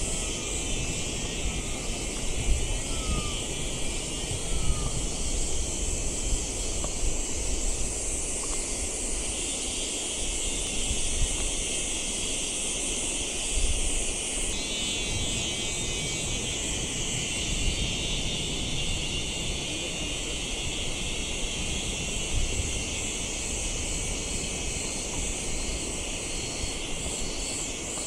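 Forest insects chirring in a steady, shrill chorus, with a low wind rumble on the microphone. A few faint short bird chirps come in the first few seconds.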